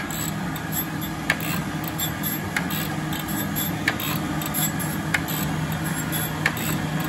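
Jones & Shipman Model 1400 surface grinder running with flood coolant: a steady motor hum and coolant wash while the wheel takes a light first pass across two steel discs on the hydraulic table, which runs back and forth. A sharp click comes about every 1.3 seconds as the table reverses at the end of each stroke.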